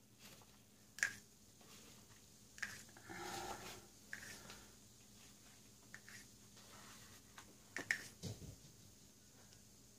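A few faint clicks and taps of a plastic palette knife against a small plastic cup as spilled pouring paint is scraped up and swiped back in.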